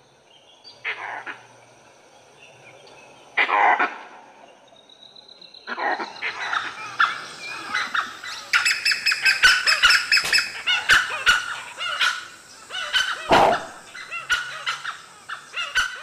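Langur alarm calls ring out a few times, single loud calls spaced seconds apart. From about six seconds in, a pack of dholes (Indian wild dogs) takes over with a rapid, dense run of sharp, high yaps and chattering calls as they mob a leopard they have chased up a tree.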